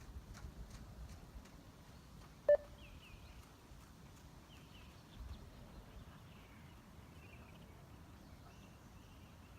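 One short electronic beep from a 20 m beep test (multi-stage shuttle run), about two and a half seconds in. It marks the end of one 20 m shuttle in level 1, where the beeps come about nine seconds apart.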